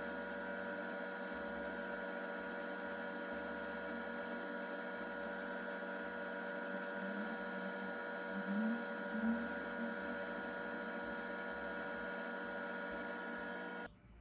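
Steady machine hum with several constant tones, cutting off suddenly near the end.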